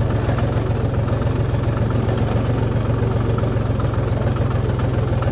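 A farm tractor's diesel engine runs steadily with a fast, even low chugging as the tractor drives along.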